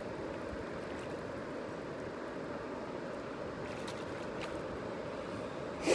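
Steady rush of river water, with faint splashes about four seconds in as a hooked trout thrashes at the surface. A short, sharp noise right at the end is the loudest moment.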